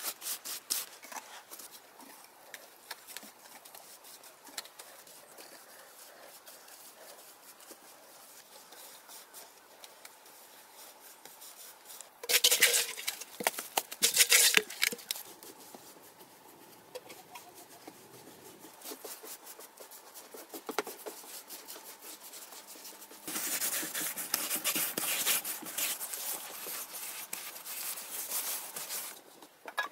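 Hands patting and smearing wet cement mortar onto packed earth and a clay pot, with soft scattered taps. There are two louder stretches of rubbing and scraping, one about twelve seconds in and a longer one from about twenty-three seconds until near the end.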